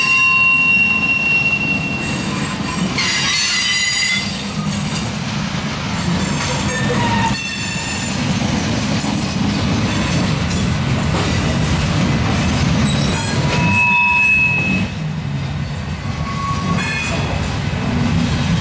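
Loaded coal hopper cars rolling past on steel wheels, a steady low rumble of wheels on rail. High-pitched wheel squeals come and go over it: one held for about two seconds at the start, shorter ones a few seconds in, and another about two-thirds of the way through.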